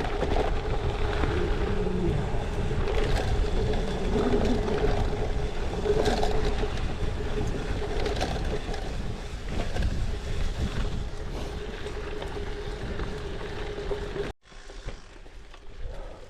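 Gravel bike riding fast over washboard gravel: tyres and frame rattling and rumbling over the ruts, with wind noise on the microphone. The sound cuts off suddenly about fourteen seconds in and carries on quieter.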